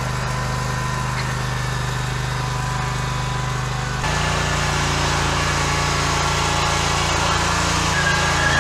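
Zero-turn riding mower engine running steadily as it tows a second mower on a chain. About four seconds in, the engine sound jumps a little louder and changes tone, and a high whine joins near the end.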